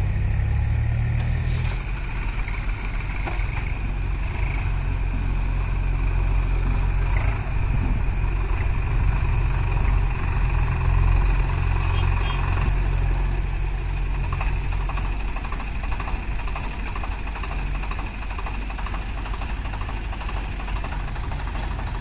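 Diesel engines of a JCB backhoe loader and a small farm tractor running steadily close by, a continuous low rumble with a faint steady high whine over it.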